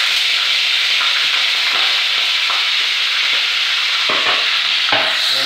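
Seasoned pork strips sizzling steadily in very hot oil in a pan, just after they hit the oil, with a couple of light clicks about four and five seconds in.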